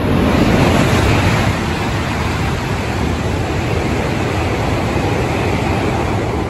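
E6-series Komachi coupled to an E5-series Hayabusa Shinkansen passing through the station at high speed: a loud, steady rush of air and wheel noise. It is loudest about half a second in and eases off near the end.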